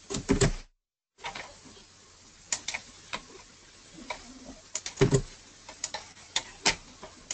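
Scattered sharp clicks of a computer mouse and keyboard, some in quick pairs and triplets, during data entry on a computer. The audio drops out to dead silence for about half a second near the start.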